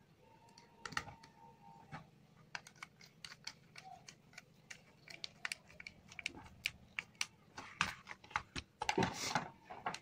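Irregular small clicks and taps of a screwdriver and fingers working the terminal screws and wires of a plastic switchboard, with a denser, louder clatter about nine seconds in.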